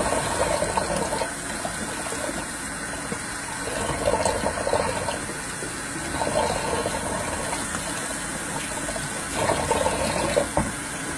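Kitchen tap running, with water splashing into the sink and a mug held under the stream to fill it with lukewarm water. The splashing swells louder four times, about every three seconds.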